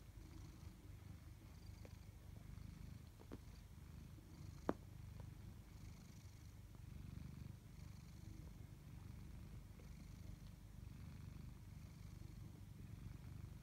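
Tabby cat purring, a faint low rumble that swells and eases in a slow, even rhythm. A single sharp click stands out about a third of the way through.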